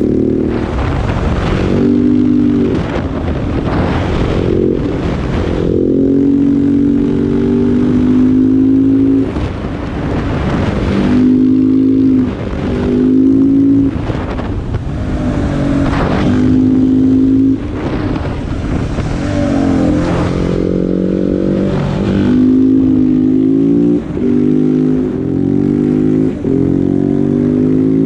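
KTM 690 SMC R single-cylinder engine through a LeoVince exhaust, ridden hard and accelerating through the gears. The revs climb, then drop at each shift, over and over, with short dips where the throttle closes.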